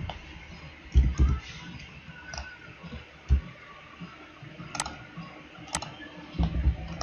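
Computer mouse clicks: two sharp clicks about a second apart near the end, with a few dull low thumps, the loudest of them about a second in.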